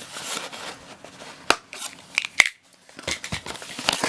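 Packaging being opened by hand: rustling and crinkling with a few sharp snaps, the loudest about two and a half seconds in, then a brief lull before more crinkling.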